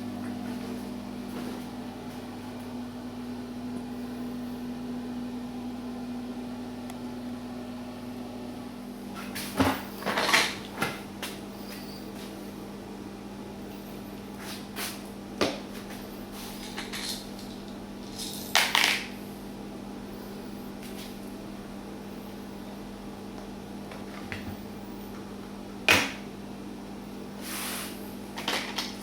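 A steady machine hum that drops slightly in pitch about nine seconds in, with a handful of sharp knocks and short clatters of hard objects being handled.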